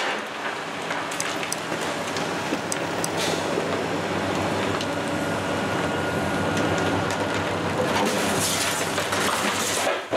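Excavator diesel engines running under load while demolition grapples break apart the building's upper wall. Sharp knocks and clanks come in the first few seconds. Near the end there is a loud crash of breaking material and falling debris.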